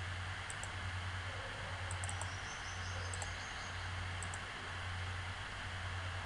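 Steady low hum and hiss of the recording's room tone, with a few faint computer mouse clicks, some in quick pairs.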